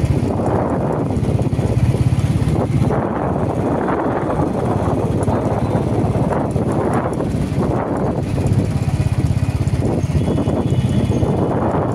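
Wind buffeting the microphone: a loud, low, fluttering rumble that swells and eases in gusts.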